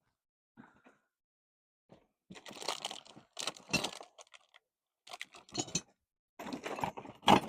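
Rummaging among small hard objects: bursts of clattering, crinkling and clinking, with one sharp click near the end.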